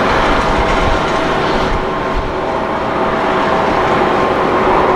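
Boeing 777-300ER's GE90 jet engines running loud and steady as the airliner rolls out on the runway after landing, a dense roar with a faint steady whine through it.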